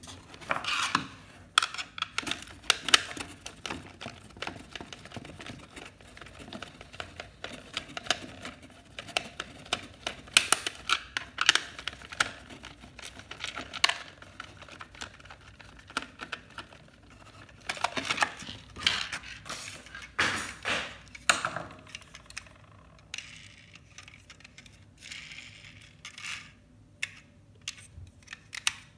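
Irregular clicks, taps and scrapes of a small screwdriver working screws out of a plastic mounting plate on cardboard packaging, with plastic and cardboard being handled. The handling noise thins out and gets quieter near the end.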